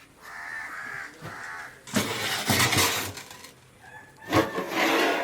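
Crows cawing in a series of short calls, with two louder, harsher noisy sounds, one about two seconds in and one near the end.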